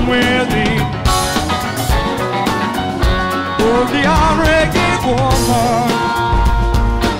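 Live band with guitar, keyboards, bass and drums playing an instrumental jam: a steady drum beat and bass line under a lead line of bending, wavering notes.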